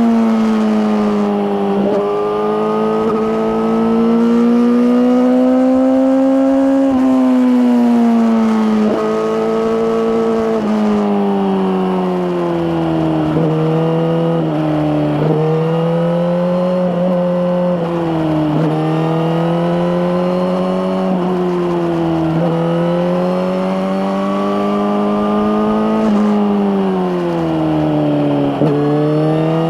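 Suzuki GSX-R1000R inline-four with an Akrapovic slip-on exhaust, ridden under way. The engine note climbs and falls with the throttle, with quick drops in pitch every couple of seconds.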